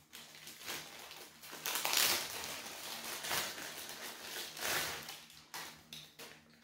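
Packaging crinkling and rustling as a crossbody bag is unwrapped by hand, in uneven swells, loudest about two seconds in and again near five seconds.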